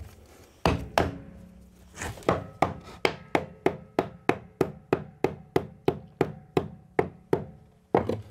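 Claw hammer tapping a wooden block to drive it back between the floor trusses. There are two slower blows about a second in, then a quick, even run of taps at about three or four a second until near the end.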